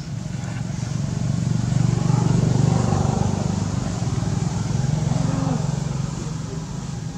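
A motor vehicle engine passing nearby, growing louder to a peak a couple of seconds in and then fading away.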